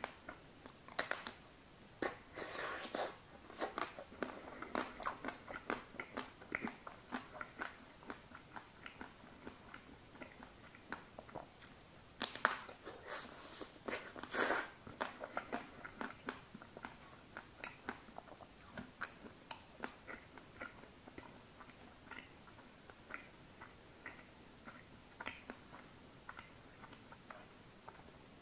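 Close-miked bites into a chocolate-coated ice cream bar, the chocolate shell cracking, followed by wet chewing and mouth clicks. The louder bites come in two clusters, about one to four seconds in and again about twelve to fifteen seconds in, with quieter chewing between and after.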